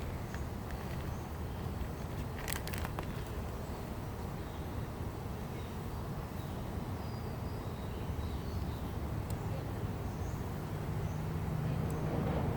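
Steady low background rumble and hiss with faint bird chirps. A brief clicking of small metal ignition-lock tumblers being handled comes about two and a half seconds in.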